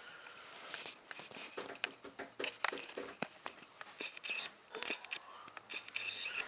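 Irregular small knocks, clicks and rustling as a cheap, flimsy-feeling small wooden shelf unit is handled and fitted together by hand.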